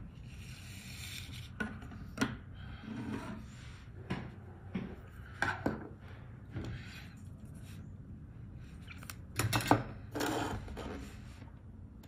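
Scattered small clicks, taps and scrapes of tools and parts being handled on a workbench during keyboard PCB assembly, with the loudest cluster of knocks near the end.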